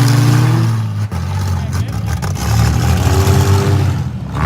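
Minivan engines revving hard in a demolition derby: a loud, low drone rising and falling in pitch, with a sharp knock about a second in and a few more near the middle as vehicles hit.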